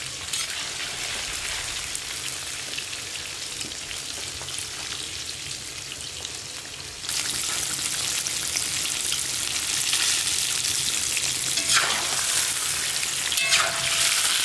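Food sizzling as it fries in a pan, a steady hiss that grows louder about halfway through, with a few short clinks or scrapes of stirring near the end.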